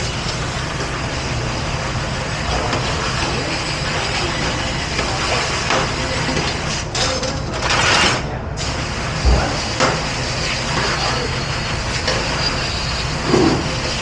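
Steady rush of water and machinery in a commercial dish pit, with stainless steel cutlery clinking as it is handled and sorted into a rack. A louder hiss swells briefly about eight seconds in.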